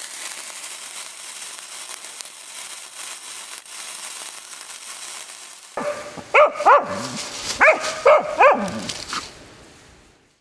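A burning trail of powder fizzes and hisses steadily for about six seconds. Then a dog barks about five times in quick pairs, and the sound fades out.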